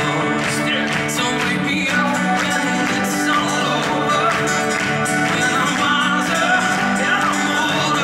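Live pop-rock band performance: a man singing while playing acoustic guitar, backed by a band, heard from the audience in a theatre.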